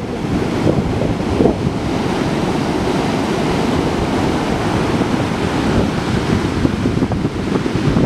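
Ocean surf breaking and washing up over the sand as a steady rushing noise, with wind buffeting the microphone.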